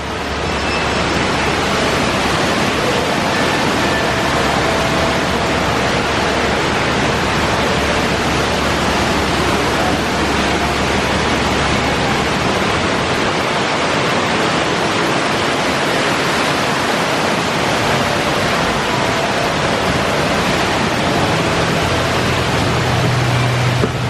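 Water falling and splashing steadily from a fountain, a loud, even rush.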